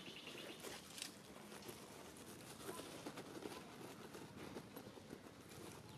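Quiet outdoor background with a few faint, scattered soft taps.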